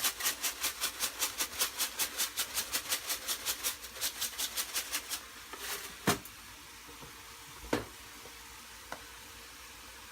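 A seasoning shaker shaken rapidly over the pan, about six rattles a second for about five seconds. Then ground chicken sizzles steadily in the pan, with two sharp knocks of a utensil, one about six seconds in and one near eight seconds.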